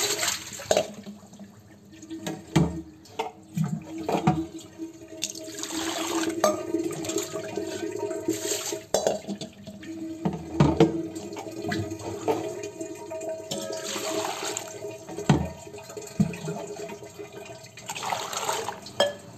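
Water poured and splashing into a stainless-steel pot in several separate pours, with brinjals being rinsed and a few knocks of vegetables and vessels in between.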